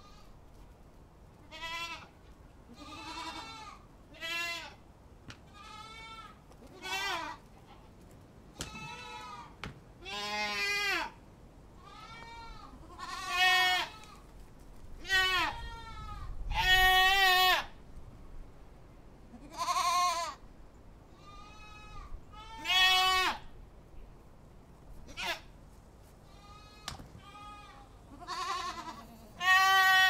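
Goats bleating again and again, a call every second or two, in several voices at different pitches. The loudest bleats come in the middle and at the very end.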